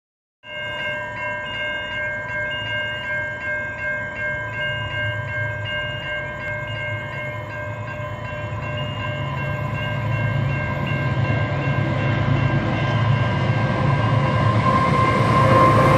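Railroad crossing warning bells ringing in a steady rhythm, about two dings a second, while an approaching freight train's rumble grows steadily louder.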